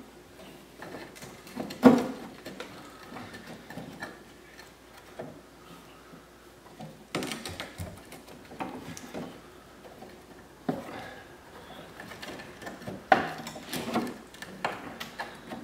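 Scattered knocks, clicks and scraping as a new metal fuel filler neck and its rubber hoses are worked into place under the car. The sharpest knock comes about two seconds in, another near the end.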